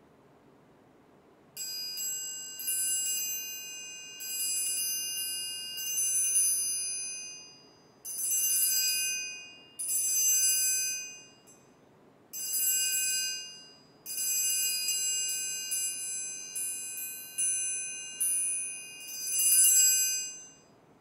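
Orchestral triangle played in several phrases of strokes and rolls, each ringing bright and high, swelling louder and then damped short, with brief silent gaps between phrases. The ring is the same every stroke, as from a single unpitched metal instrument.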